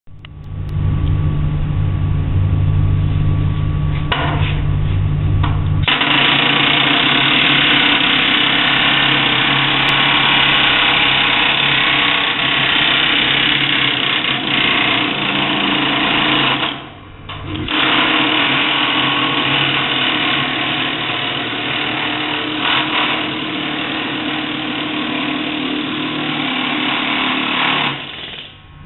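Pneumatic air hammer running continuously as it hammers closed a Pittsburgh lock seam on a sheet-metal duct. It starts about six seconds in, after a steady low hum, and pauses briefly a little past the middle before carrying on.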